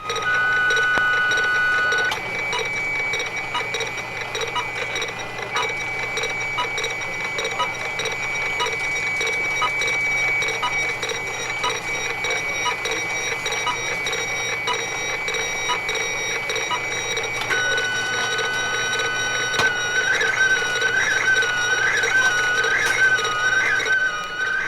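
1960s fax machine sending a photograph: a steady high electronic tone with regular ticking over a low hum. The tone changes about two seconds in, then shifts to a lower tone about two-thirds through that soon begins to warble.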